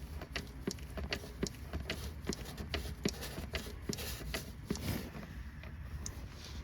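Hand-operated fluid pump being worked stroke after stroke, a short click about two or three times a second, as 75W-90 gear oil is pumped into a transfer case fill hole until it runs out of the hole.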